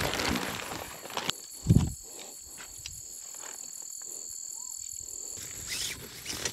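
Tent fabric rustling and crumpling as it is handled and spread out, with a soft thump about two seconds in. After that, crickets chirping steadily in the background.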